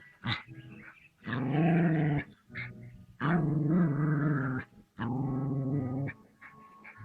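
Dog growling in three drawn-out growls of about a second each, low and pitched, with short pauses between them.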